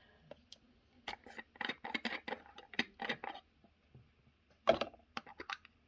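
A cosmetic jar of cleansing balm being opened and handled with its little spoon: a run of light clicks and taps, then a sharper knock and a few quick clicks near the end.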